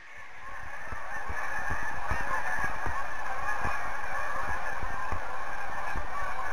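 A large flock of Canada geese honking in flight, many birds calling over one another in a continuous chorus. It swells in over the first second or so, with irregular low thumps underneath.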